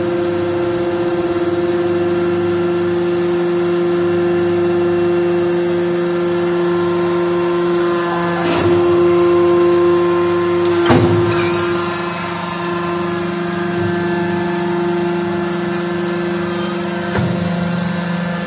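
Briquette-forming hydraulic press running, its pump and motor giving a steady hum with several held tones. About halfway through come two short, loud knocks or rushes as the press works through its cycle, and a smaller one near the end.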